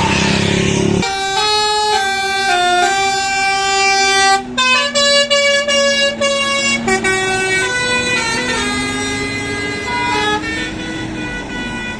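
Indonesian bus 'telolet' musical air horn playing a tune of held notes that step up and down in pitch, over a lower steady tone that rises briefly near the end. In the first second, the louder noise of a passing bus.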